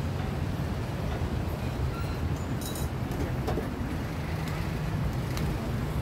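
Steady low rumble of street traffic, with a few short, light clinks of metal spoons against stainless steel cups and pots.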